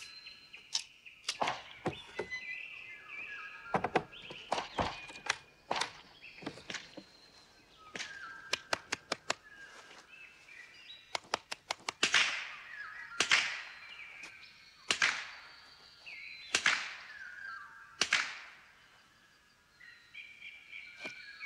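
Pistol shots on an outdoor shooting range: scattered single shots, two quick strings of about half a dozen shots near the middle, then a few louder shots about a second and a half apart, each trailing off in an echo. Birds chirp between the shots.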